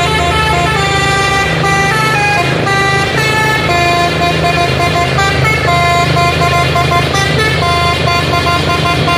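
A quick tune played on a multi-tone 'telolet' horn, its notes stepping from pitch to pitch several times a second, over a steady low rumble.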